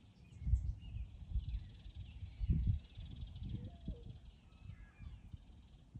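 Several small birds chirping and twittering together, with short high calls overlapping throughout. Low rumbling bumps on the microphone are louder than the birds about half a second and two and a half seconds in.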